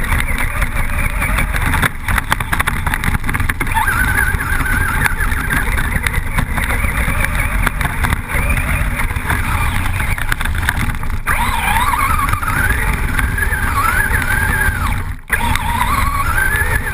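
Traxxas Rustler VXL brushless electric RC truck driving hard, heard from a camera on the truck: the motor's whine rises and falls with the throttle over a constant loud rumble of wind and rough ground. The sound drops out briefly near the end.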